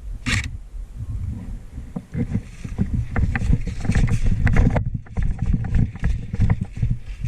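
Rumbling noise on a head-mounted camera's microphone from the wearer's movement, with many small crackles and clicks from about two seconds in.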